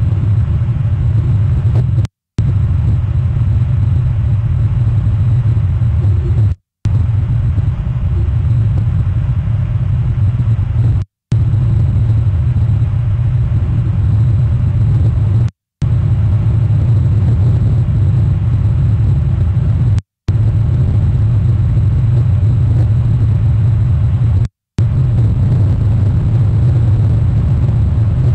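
Steady low rumble of a passing cruise ship's engines. The sound cuts out completely for a split second about every four and a half seconds, where the audio stream drops.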